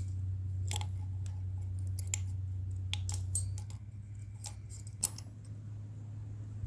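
About eight sharp clicks at irregular intervals, the loudest about three and a half seconds in, over a steady low hum that drops a little just after.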